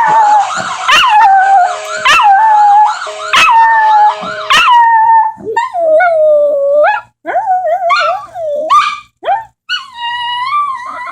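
A puppy howling, set off by a police siren: a string of short rising-and-falling howls, then longer wavering howls with short pauses between them in the second half.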